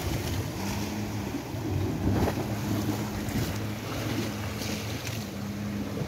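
Sea wind buffeting the microphone over the wash of waves on a rocky shore, in uneven gusts, with a steady low hum underneath.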